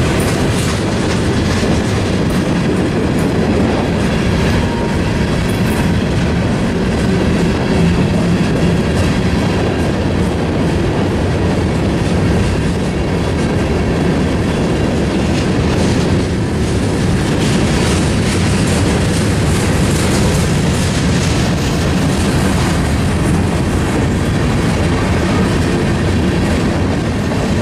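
Freight cars of a Union Pacific manifest train rolling past at close range, a steady loud rumble of wheels on the rails.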